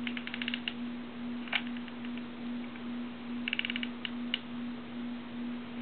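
Hot glue gun being worked, its trigger and feed mechanism clicking in two quick rattling runs, at the start and about three and a half seconds in, with a couple of single clicks between, over a steady low hum.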